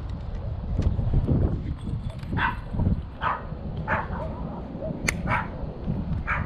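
A dog barking repeatedly, several short barks spread through the second half, over a low rumble of wind on the microphone.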